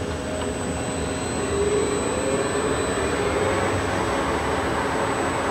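Masteel CNC hollow-spindle lathe spinning up its 32-inch four-jaw chuck: the spindle drive's whine rises in pitch over about two seconds, the sound grows louder, then it runs steadily.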